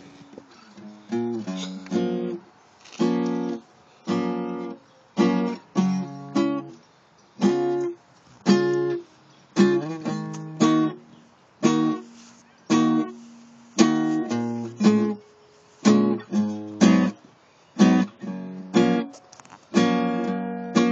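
Acoustic guitar strummed in short, choppy chords, each one cut off sharply, at about one to two strokes a second in an uneven rhythm. The playing starts about a second in, after a chord dies away.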